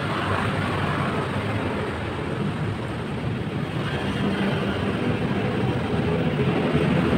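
Street traffic: steady engine rumble of passing vehicles, growing louder near the end as one draws closer.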